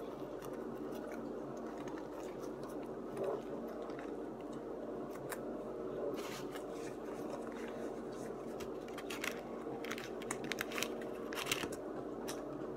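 Close eating sounds: chewing and biting into a burger, with short crackles of its paper wrapper, more of them in the second half, over a steady low hum.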